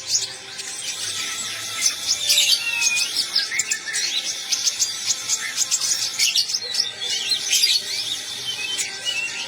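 A konin songbird singing a fast, busy stream of high chirps, trills and short whistled glides, with hardly a pause.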